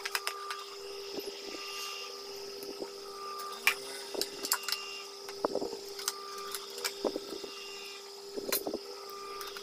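Scattered clicks and knocks of wires and the plastic housing being handled on an opened food processor, over a steady background hum.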